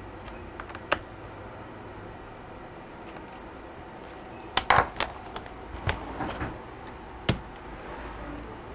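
Handling knocks from a Dell XPS 13 laptop's aluminium casing. There is a single sharp tap about a second in, then a cluster of knocks and taps from about halfway through as the laptop is turned over and set down on the work mat.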